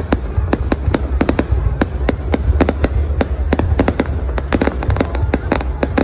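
Aerial fireworks display: a rapid, irregular string of sharp bangs and crackles, several a second, over a steady low rumble.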